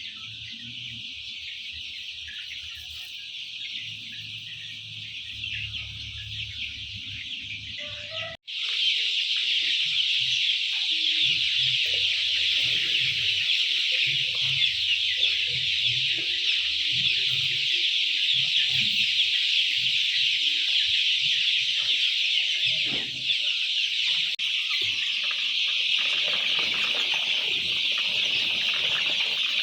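A dense, steady chorus of many chickens, laying hens calling all together. It breaks off sharply about eight seconds in and comes back louder.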